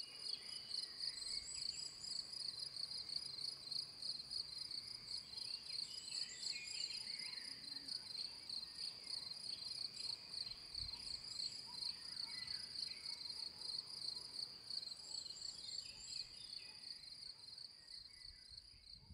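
Crickets chirping: a steady, rapidly pulsing high-pitched trill with fainter scattered chirps, fading out near the end.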